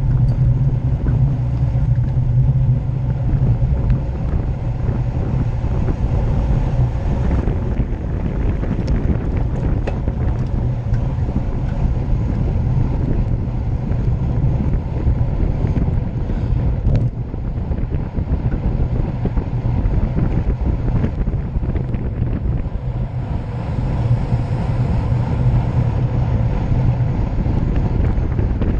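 Steady wind buffeting the microphone of a camera on a racing road bicycle moving at speed, mixed with the rumble of tyres on the road.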